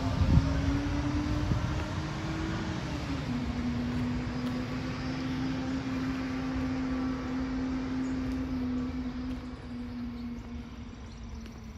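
Mack garbage truck with a McNeilus split-body rear loader driving away, its engine drone climbing slightly and then dropping at a gear change about three seconds in, steady after that and fading with distance. A sharp knock comes right at the start.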